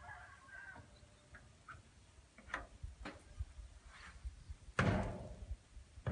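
Outdoor field ambience: a steady low rumble with a few scattered sharp knocks, the loudest about five seconds in.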